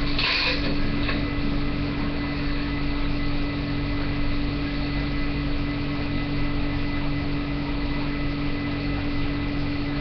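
Steady low mechanical hum with a constant tone, unchanging throughout.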